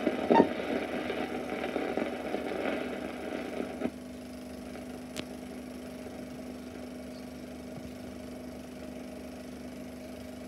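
Super 8mm sound film projector running: a louder mechanical clatter with a sharp knock about half a second in, dropping about four seconds in to a steadier, quieter whir with a low steady hum.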